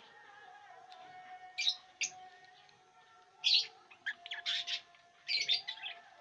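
Lovebirds chirping: short, shrill chirps, first singly and then in quick clusters through the second half.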